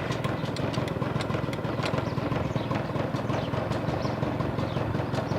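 Honda Lead 90 scooter engine idling steadily with a repeated knock heard over it: the engine knock the owner is showing.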